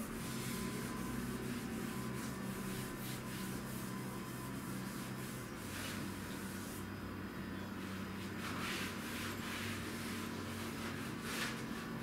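Hand cleaning at a kitchen counter: irregular rubbing and scrubbing noises coming and going over a steady low hum.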